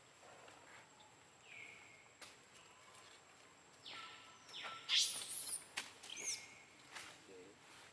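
Long-tailed macaques giving several short, high-pitched squeaks that drop in pitch and then hold, with a louder, harsher scream about five seconds in. A few faint clicks come from movement on the leaf litter.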